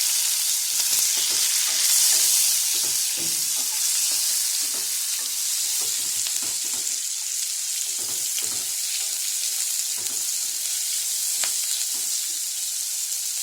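Onion and bay leaves frying in hot oil: a steady sizzle, stirred with repeated short scrapes of a utensil in the pan. The sizzle is loudest in the first few seconds and eases slightly after.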